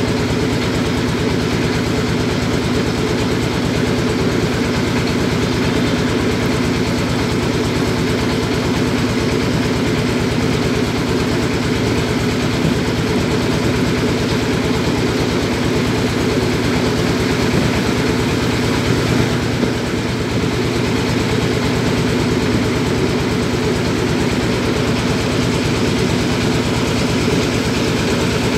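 Tour boat's engine running steadily at an even speed: a loud, unchanging drone with a fast, regular beat.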